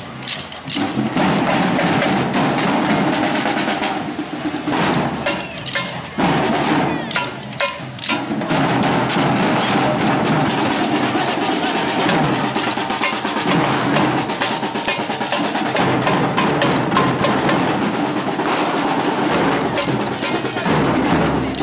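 Batucada samba drum group playing a fast, dense rhythm, with snare drums rolling over the beat of the other drums. There are brief breaks in the first eight seconds.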